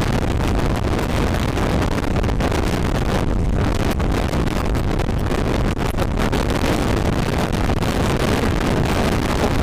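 Wind rushing and buffeting over an action camera's microphone on a moving Honda CBR150R, with the motorcycle's single-cylinder engine running underneath.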